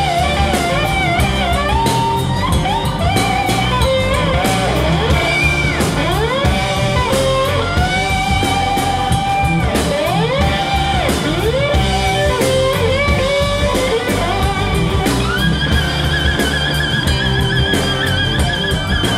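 Live blues-rock band playing an instrumental break: an electric slide guitar leads, its notes gliding up and down, over bass and drums. About three-quarters through, the lead settles into one long, wavering held note.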